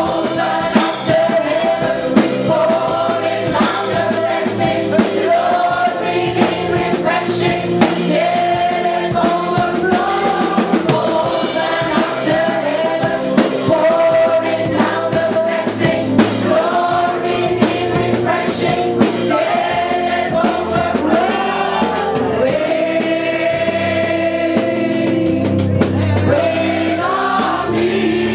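Live gospel worship music: a congregation singing a worship song together, with long held notes over instrumental backing.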